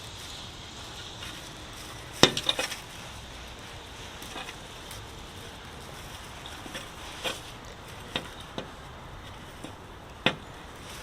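A few sharp clinks and knocks of hard objects being handled, a quick cluster about two seconds in, then single ones spaced through the rest, over a steady background hiss.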